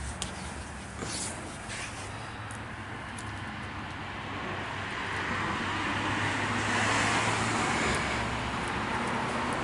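A steady rushing outdoor noise with no clear pitch, swelling louder from about halfway through, with a few faint clicks near the start.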